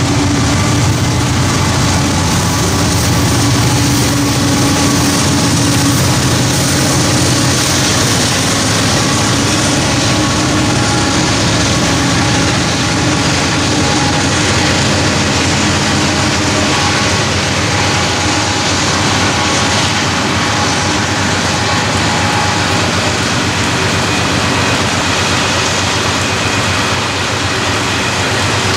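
Freight train of loaded rock hopper cars rolling past on the rails, a steady noise of steel wheels on track. The diesel locomotive's engine drone fades out over the first several seconds as the cars keep rolling by.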